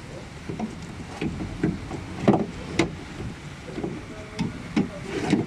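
Irregular clicks and knocks of a car window regulator's metal and plastic parts being handled and worked apart by hand, the two loudest knocks a little over two seconds in and about half a second later.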